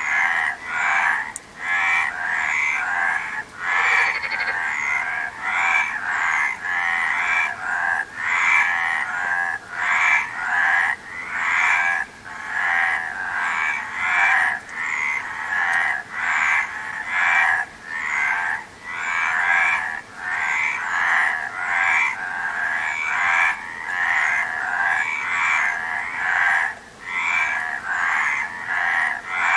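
Chorus of frogs croaking, pulsed calls following one another with hardly a pause.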